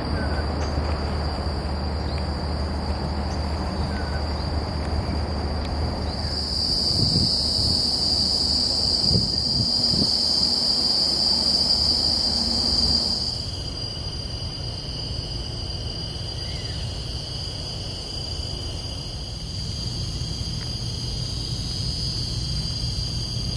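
Steady high-pitched drone of tropical insects, loudest for several seconds in the first half. For the first few seconds it lies over a low rumble of distant road traffic.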